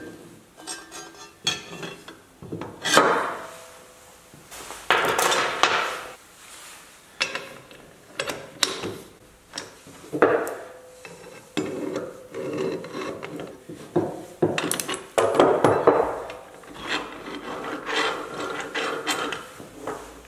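Zinc-plated steel rear suspension spring plates ('swords') and their bolts being handled and fitted together on a wooden workbench. Irregular metal clinks, knocks and scrapes, with a socket ratchet clicking as the nuts are run down.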